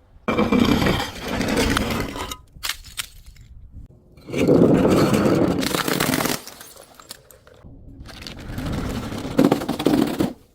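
Objects being crushed, crunching and cracking in three bursts of about two seconds each.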